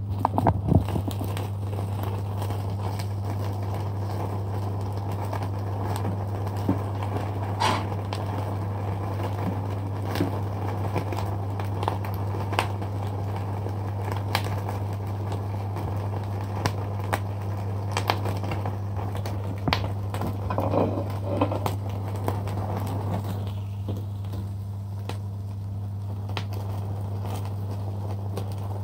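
Chicken wings in a wire grilling basket crackling and popping over a gas burner flame as their juices drip onto it, with irregular scattered pops over a steady low hum. A few quick clinks right at the start as the basket is handled.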